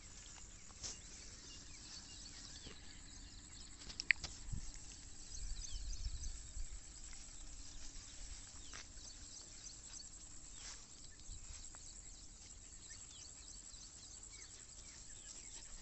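Quiet outdoor field ambience with faint high chirping throughout, a sharp click about four seconds in and a brief low rumble a couple of seconds later.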